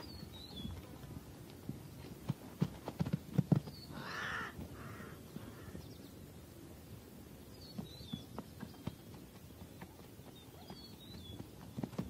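A plains zebra calling with a rasping bark in three short bursts about four seconds in, among scattered soft thuds and a few faint high chirps.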